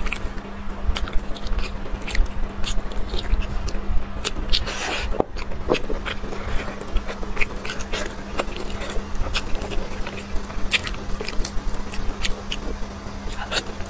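Close-miked eating of a braised pig's trotter: many short clicks and smacks as the meat is torn apart by hand and chewed, over a steady low hum.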